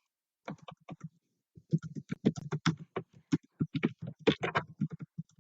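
Computer keyboard typing: a short burst of keystrokes about half a second in, then a longer, irregular run of keystrokes from about a second and a half on.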